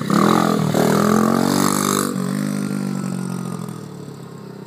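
Small pit bike's single-cylinder engine revving as it passes close, its pitch swinging up and down, then running steadier and fading as the bike rides away.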